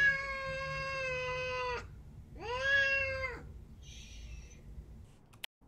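Domestic cat meowing twice: a long drawn-out meow held at a steady pitch, then a second, shorter meow about two and a half seconds in.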